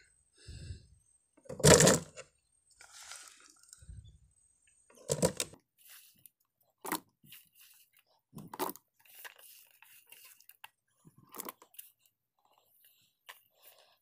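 A hand scooping chopped mango pickle from a steel bowl into a plastic jar: irregular short scrapes, rustles and soft knocks with quiet gaps between, the loudest about two seconds in.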